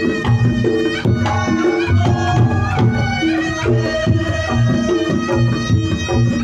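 Reog Ponorogo ensemble music: hand drums keep a busy rhythm under a repeating pattern of pitched gong-like tones, with a high, wavering melody line over the top.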